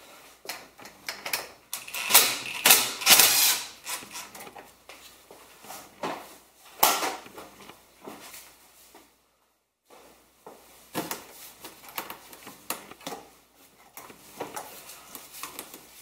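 Irregular clicks, clatters and rustling from tools and materials being handled by hand, loudest about two to four seconds in, with a second of silence around the middle.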